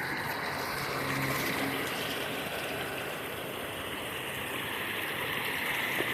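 River water rushing steadily over a small waterfall, a constant hiss.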